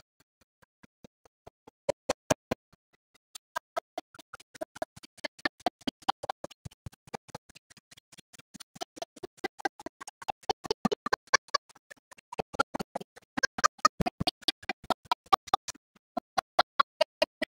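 Background music with a quick, steady pulse of short pitched notes. It is sparse for the first couple of seconds, then fuller.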